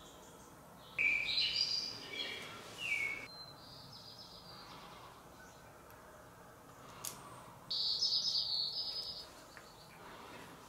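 A songbird chirping in two short bursts of high notes, about a second in and again about eight seconds in, over a faint steady hiss, with one sharp click just before the second burst.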